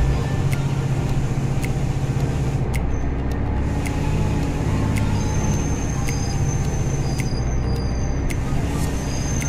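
A vehicle's engine running steadily as it drives along a wet concrete road, with a low hum and road noise. Light sharp ticks come about once a second, and a faint high whine starts about halfway through.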